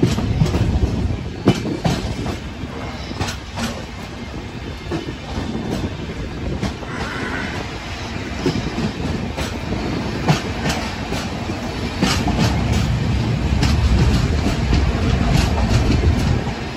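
Express train running at speed, heard from outside the coach: a low rumble with irregular clacks of wheels over rail joints, growing louder near the end.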